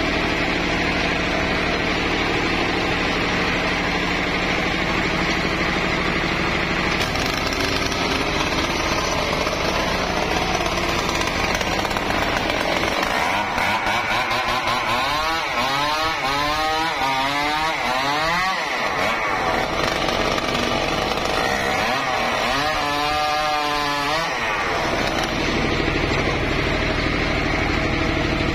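Homemade engine-driven circular sawmill running and sawing through a log. The pitch wavers up and down twice, about halfway through and again near the end, as the load on the blade changes.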